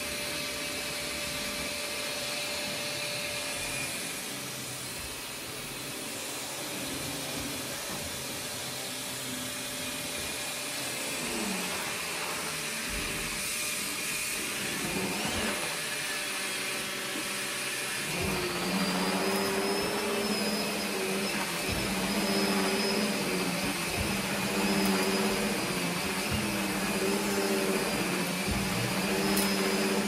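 Maytag Satellite vacuum cleaner running while vacuuming, a steady whirring rush of motor and airflow. About two-thirds of the way through a lower hum comes in and the sound grows a little louder, breaking off briefly and returning every couple of seconds.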